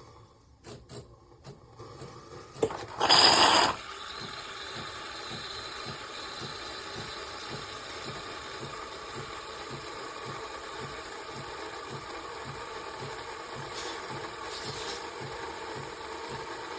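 De'Longhi Magnifica Plus automatic espresso machine running: a few light clicks, a brief loud burst of noise about three seconds in, then a steady mechanical drone with a faint regular pulse.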